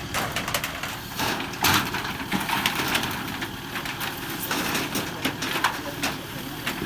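Irregular knocks and clatter over the steady sound of an engine running.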